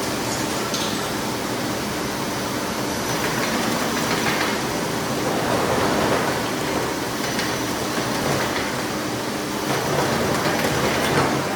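Automatic bandsaw for cutting ice running, a steady mechanical noise that swells now and then.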